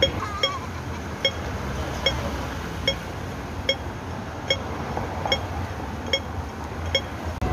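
Cars passing on a city street give a steady traffic hum. Over it, short electronic pips repeat evenly a little more than once a second, the ticking of a pedestrian crossing signal.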